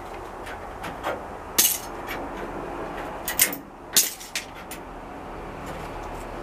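Loose pieces of old car-body sheet metal being pulled free and handled, clanking and scraping against the shell: a sharp metallic clank about a second and a half in, then several more around three and a half to four seconds, the last few fainter.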